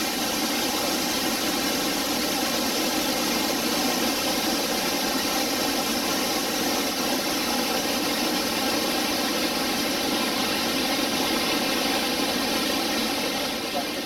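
Steady roar of the water at Iguazu Falls, a loud even rush with little deep bass.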